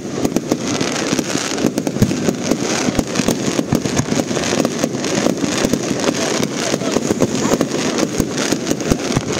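Fireworks display: a dense, continuous run of crackling and rapid sharp pops, with now and then a louder bang.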